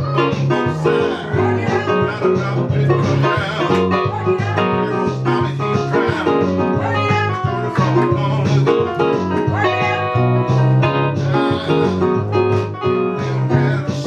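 Guitar music: plucked and strummed guitar playing over a steady bass line.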